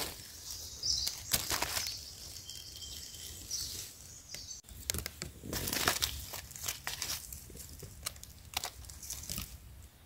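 Dry fallen leaves rustling and crackling in irregular bursts on a forest floor.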